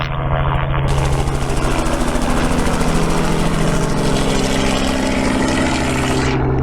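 Helicopter engine and rotor running steadily, with a fast, even pulsing beat from the rotor.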